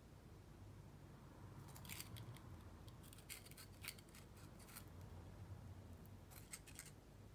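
Faint clicking and crackling handling noise as fingers work a roll of masking tape against a small fabric-and-paper figure. It comes in three short clusters: one about two seconds in, a longer one from about three to five seconds, and a brief one near the end.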